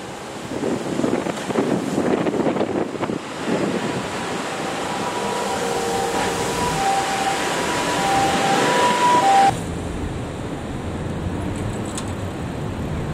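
Road traffic at a busy intersection: cars and motorcycles moving off and passing, with a few steady electronic tones at changing pitches in the middle. The sound changes abruptly about three-quarters of the way through to a steadier traffic rumble.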